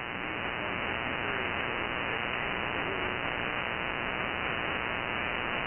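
Heavy power-line RFI on the 40-metre amateur band, heard through an ANAN G2 software-defined radio receiving in lower sideband with its noise blanker off: a steady rushing static, dull and cut off above the voice range, with no signal heard through it.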